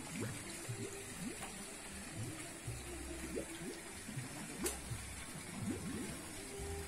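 Faint outdoor background: scattered, indistinct distant voices over a steady hiss.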